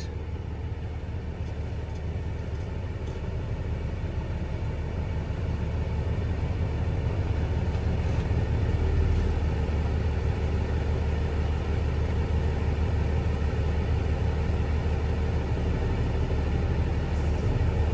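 Hino L6 truck's diesel engine idling steadily in neutral, heard from inside the cab, growing slightly louder over the first several seconds and then holding steady. The engine-driven air compressor is building the brake tanks toward governor cut-out at about 130 PSI.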